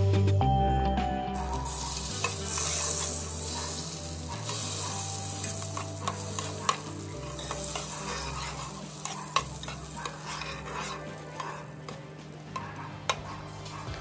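Butter sizzling as it melts in a hot pot, starting about a second in, while a metal spoon stirs it and clicks now and then against the pot.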